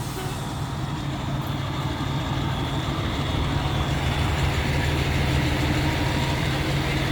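Fire truck's diesel engine running with a steady low hum, growing gradually louder.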